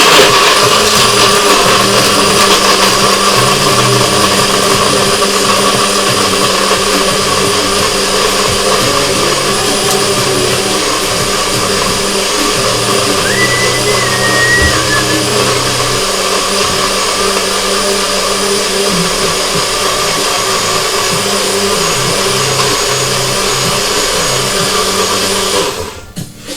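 Electric blender running steadily, crushing ice and frozen berries with vodka and water into a slush; it cuts off about a second before the end.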